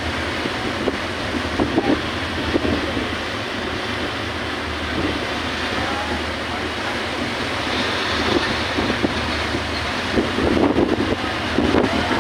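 Wind buffeting the microphone over the rush of a boat's churning wake and the steady low drone of its engine.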